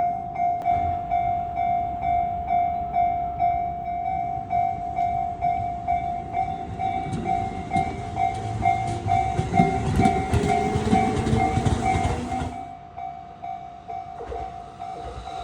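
Japanese railway level-crossing warning bell ringing in a steady, rapidly repeating electronic clang while an electric commuter train passes. The train's rumble and wheel clatter grow to a peak about ten seconds in, then stop abruptly a couple of seconds later while the bell keeps ringing.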